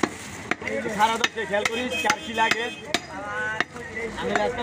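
Butcher's knife chopping beef on a wooden log chopping block: a quick series of about ten sharp, irregular chops.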